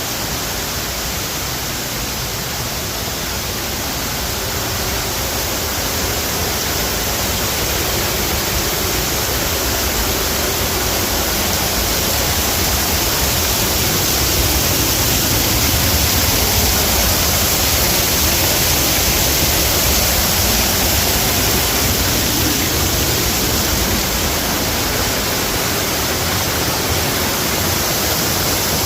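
Waterfall pouring steadily, a constant rushing of water that grows a little louder over the first half.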